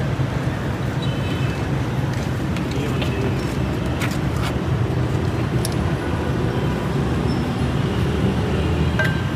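Steady road traffic noise: a busy street's vehicles running with a continuous low hum, and a couple of sharp clicks about four seconds in.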